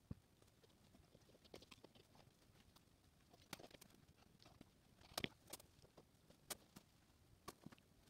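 Faint, scattered clicks and snips of hand wire strippers working the insulation off a wire, the sharpest a little past halfway.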